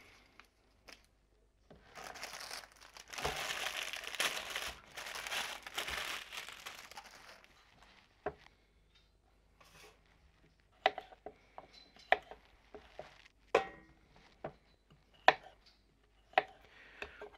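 Plastic bag of baby potatoes crinkling and rustling as it is handled, followed by sharp, irregular knocks of a knife cutting through potatoes onto a plastic cutting board.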